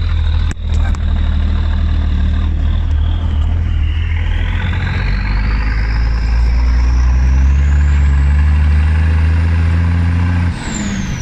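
Truck engine pulling under acceleration, heard from inside the cab, with a high whine that climbs steadily in pitch as it gathers speed. A sharp knock comes about half a second in. Near the end the engine note drops and the whine falls away.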